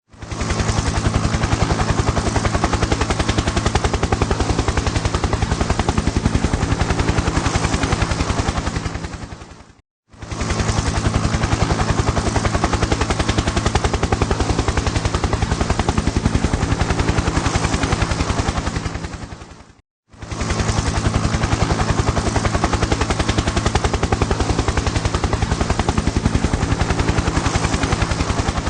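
Helicopter rotor chop: a rapid, even beating of the blades over a steady low engine drone. It plays three times, each run lasting about ten seconds, fading in and out with short silences between.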